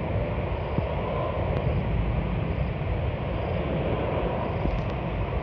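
Steady jet roar of a Singapore Airlines Airbus A380-800's four Rolls-Royce Trent 900 engines as it flies low on approach to land, with wind rumbling on the microphone.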